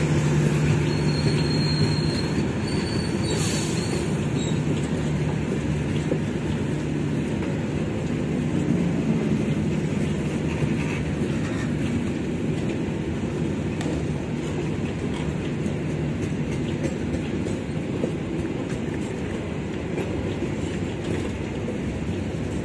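A diesel-hauled passenger train passing slowly, held to a 20 km/h speed restriction. The locomotive's engine hum is heard at first and fades within about two seconds, leaving the steady rumble of the coaches' wheels rolling over the rails.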